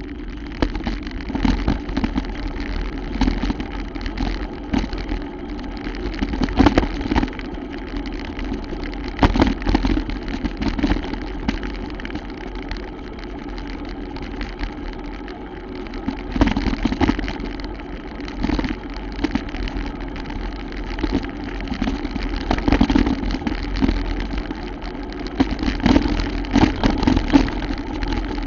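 Mountain bike ridden over rough, muddy trail: a steady rumbling drone with frequent knocks and rattles as the bike jolts over the ground.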